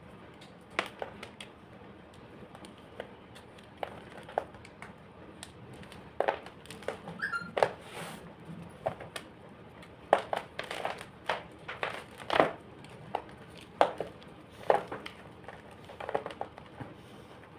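Homemade gym chalk being crushed: sharp, crisp crunches at irregular intervals, sparse at first and coming more often from about six seconds in.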